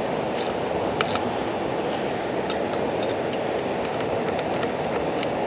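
Steady low rushing machine noise, with a few faint, sharp clicks as hand tools work the bolts of a combine clutch pressure plate.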